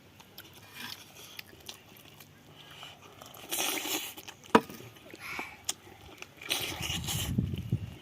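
Close-up eating sounds: a person chewing and biting food, with a sharp click about four and a half seconds in.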